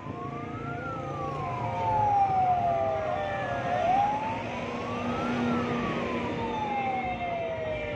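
Siren in a slow wail, climbing in about a second and falling away over about three, twice over, above steady road traffic noise.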